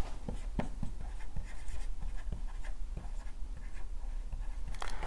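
Marker writing on a whiteboard: a run of short, irregular strokes and taps of the felt tip as words are written.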